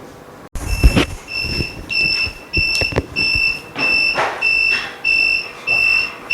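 Mini OCA laminating machine's buzzer beeping in short, even, high-pitched beeps about twice a second, signalling that the laminating cycle has finished. A few knocks of handling sound near the start.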